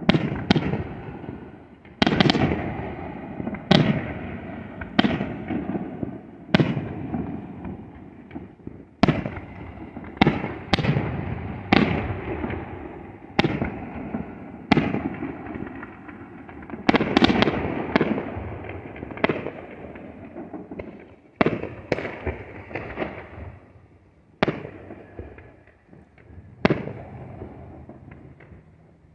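Aerial firework shells bursting, about twenty sharp bangs at uneven intervals, each trailing off in an echo.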